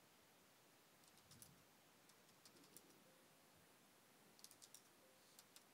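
Faint computer keyboard typing: soft keystroke clicks in small clusters with pauses between them.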